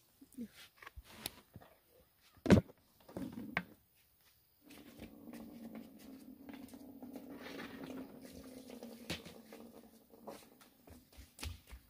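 Hands handling sliced star fruit in a plastic bucket of water: small clicks and knocks with one loud thump about two and a half seconds in. Then a steady low hum for about six seconds, followed by light ticks near the end.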